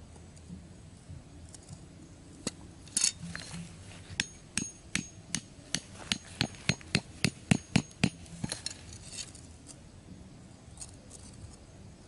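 Hammer driving a bamboo stake into the ground: a run of about fifteen sharp knocks. They start a couple of seconds in and quicken to about three a second before stopping.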